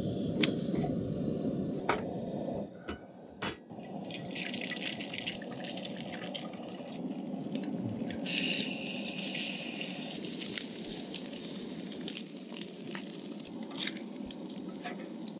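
Propane camp stove burner running with a steady low rush, with a few sharp clicks in the first few seconds. From about four seconds in, eggs fry with a sizzle in a cast-iron skillet, and the sizzle grows louder about eight seconds in.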